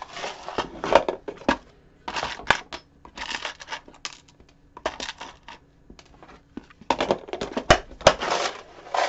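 Small metal picture hangers and nails rattling and clinking in a clear plastic storage box as hands sort through it, in several bursts of rattling with sharp clicks.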